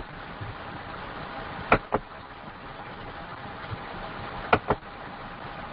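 Computer mouse double-clicked twice, once about two seconds in and again about four and a half seconds in, over a steady background hiss.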